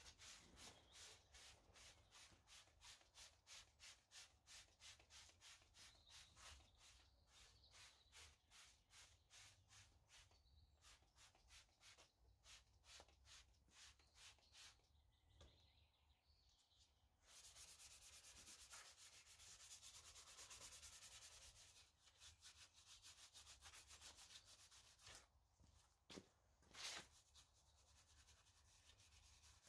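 Faint, rapid back-and-forth scrubbing on a car's surface, about four strokes a second. About halfway through it turns into a few seconds of steadier rubbing hiss.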